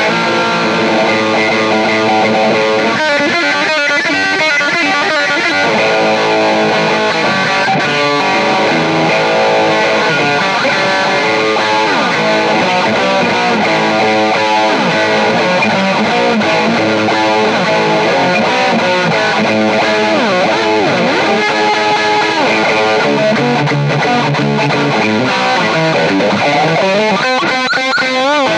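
Background music: distorted electric guitar with strummed chords and gliding lead notes, playing steadily.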